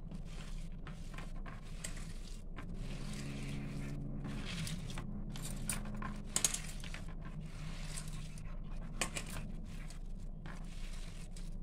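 A hand mixing grated bottle gourd, besan and spices in a steel plate: irregular scraping and squishing strokes against the metal, with a few sharp clinks of glass bangles on the wrist.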